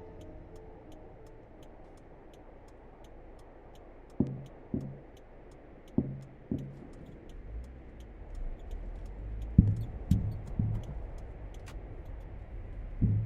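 Horror sound-effect bed: a steady clock-like ticking, joined about four seconds in by deep thuds in pairs like a heartbeat, which come closer together over a low rumble that builds toward the end.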